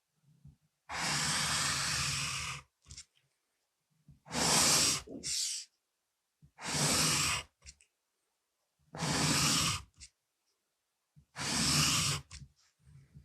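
Pencil scraping across paper in five long strokes, one every two and a half seconds or so, with short pauses between them.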